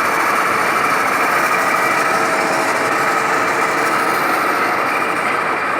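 Milling machine running steadily with a constant high whine as it mills flats for grease fittings.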